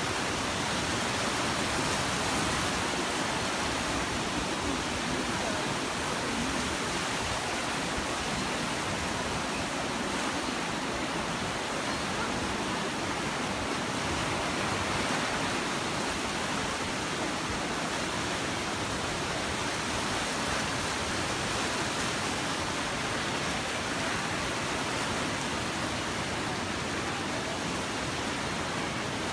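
Flood-swollen river rushing and churning in white water below a bridge, a steady unbroken rush of water.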